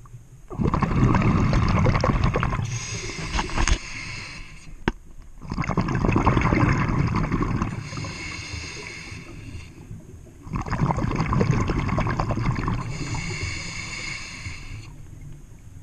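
Scuba diver breathing through a regulator underwater: three breaths about five seconds apart, each a burst of exhaled bubbles rumbling and gurgling past the camera, with a hissing tone from the regulator.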